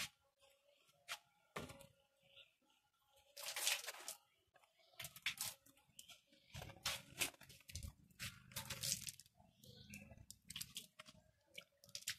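Faint, irregular scraping and rubbing as a green bamboo pole is scrubbed and handled while being washed.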